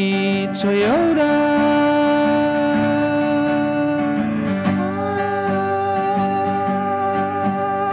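A man singing long held notes through a microphone over an acoustic guitar; his voice slides up into a held note about a second in and again just before five seconds.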